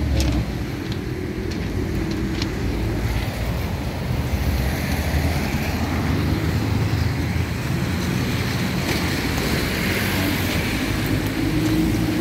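Road traffic on a wet street: a steady low rumble of vehicles, with tyre hiss swelling and fading through the middle.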